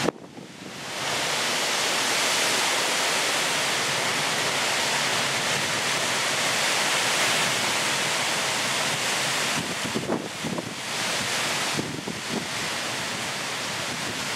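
Thunderstorm downpour and storm wind in the trees: a loud, steady, dense rush of hiss, with a few short buffets of wind on the microphone between about ten and twelve seconds in.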